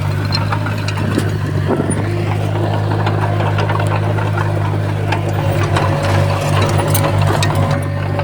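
Komatsu D20P crawler bulldozer's diesel engine running steadily, with scattered sharp clicks and knocks of metal over it throughout.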